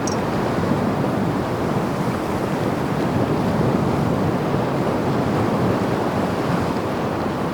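Ocean surf washing steadily onto the shore, mixed with wind, swelling slightly about halfway through.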